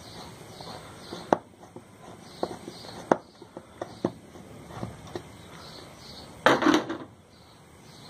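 A screwdriver turning out the screw that holds the plastic pulsator of a twin-tub washing machine: scattered sharp clicks and knocks of the tool on the screw and agitator, with a louder short clatter about six and a half seconds in.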